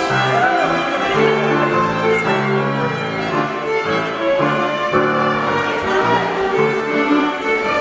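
Scottish country dance jig music with fiddle, played at a steady dance tempo.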